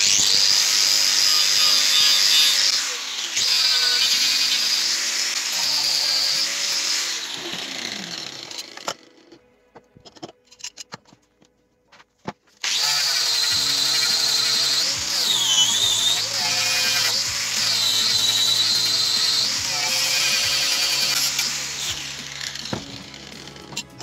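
Angle grinder with a sanding disc grinding a wooden cleaver handle, its high whine wavering as the disc is pressed into the wood. It stops for a few seconds around the middle, with only a few clicks, then runs again and fades near the end.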